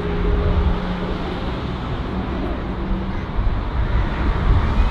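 Jet airliner engine noise: a steady rumble with a low hum, and a deeper rumble that grows louder over the last second or so.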